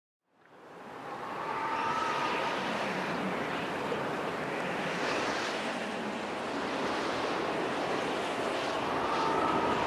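A steady rushing noise that fades in over the first two seconds, with a faint thin whistle near the start and again near the end.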